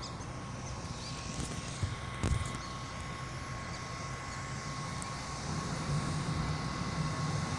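An engine running steadily as a low drone, growing a little louder about five and a half seconds in, with one small knock a little over two seconds in.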